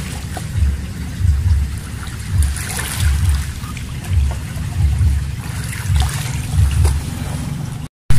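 Wind buffeting the microphone in irregular low rumbling gusts, over a faint trickle and lap of shallow seawater. The sound cuts out for a moment near the end.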